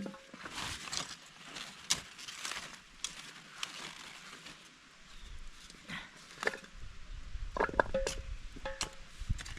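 Potato digging with a hoe in soil: a run of scrapes and sharp knocks at an uneven pace, with a low rumble setting in about seven seconds in.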